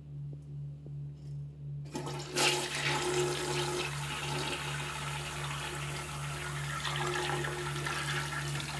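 Toilet flushing: a rush of swirling water starts about two seconds in, surges briefly, then runs on steadily. A low pulsing hum sounds underneath throughout.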